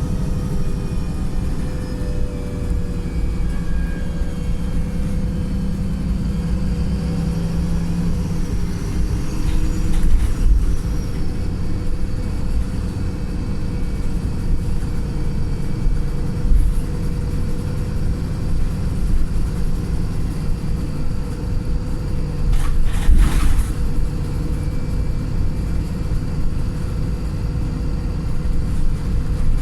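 Wright Pulsar single-deck bus's tired diesel engine running with a thrashy drone under way, heard from on board. About two-thirds of the way through there is a short hiss of air, the 'sneeze' of the bus's air system.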